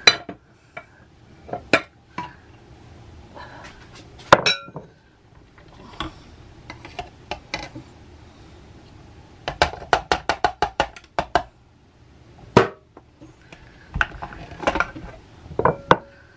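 Food processor's plastic bowl and blade being handled as chopped broccoli is emptied into a glass measuring cup: scattered knocks and clinks of plastic and glass, with a quick run of taps a little past halfway.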